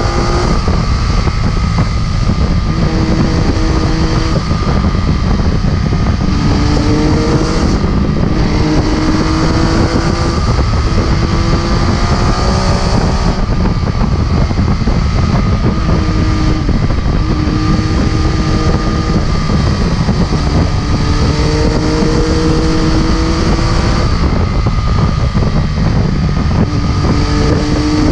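MV Agusta F3 675's inline three-cylinder engine pulling hard at speed, its note climbing and then dropping back again and again as it shifts through the gears. Heavy wind rush buffets the microphone throughout.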